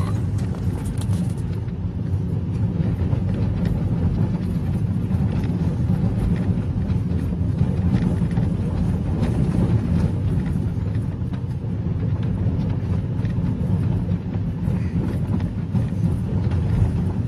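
Car driving along a dirt track, heard from inside the cabin: the engine and tyres make a steady low rumble.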